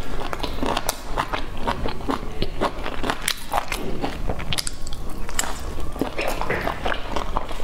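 Eating sounds of a person biting into and chewing boiled dumplings dipped in chili sauce, with many short mouth clicks and smacks throughout.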